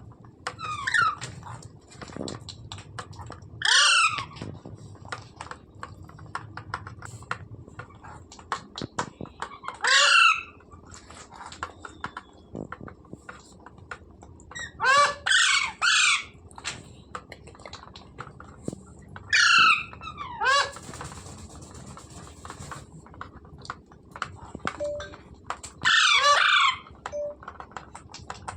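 Green parrot squawking: loud, harsh calls repeated about eight times, some in quick pairs, with faint clicks and taps between them.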